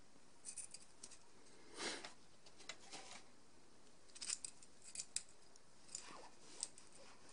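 Faint handling noise of a coiled XLR microphone cable being turned over in the hands: soft rustling and rubbing of the cable, with scattered light clicks and ticks from its metal XLR connectors. The louder rustle comes about two seconds in.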